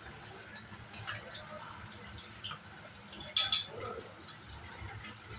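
Battered food pieces deep-frying in hot oil in a wok: a steady sizzle with scattered crackles. About three and a half seconds in there is a sharp clack.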